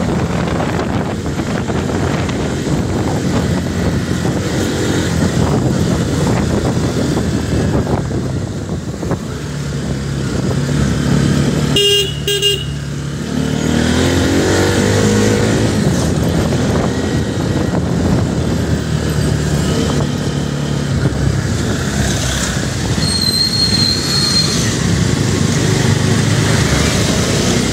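Motorcycle engine running under way in traffic, with wind on the microphone. About halfway through, a vehicle horn toots briefly, then the engine revs up with a rising pitch; a short high-pitched squeal sounds near the end.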